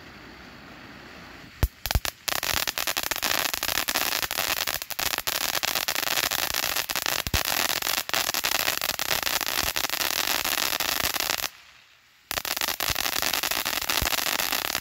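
Phantom Fireworks 'Night Terror' consumer fountain burning. A steady hiss of sparks gives way, about a second and a half in, to a few sharp cracks and then dense, loud crackling. The crackling breaks off for a moment near the end, resumes, and cuts off suddenly.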